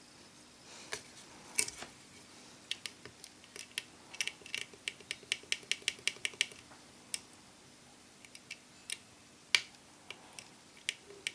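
Newly fitted iPhone 4 home button being pressed over and over to test it: a run of sharp clicks, about two or three a second for several seconds, with a few louder single clicks before and after.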